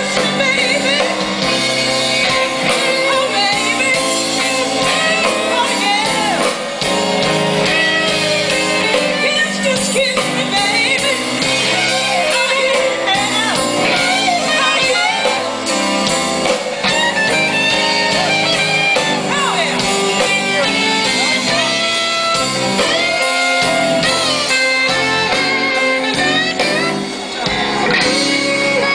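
Live blues band playing a song with a singer and guitar, amplified through outdoor PA speakers.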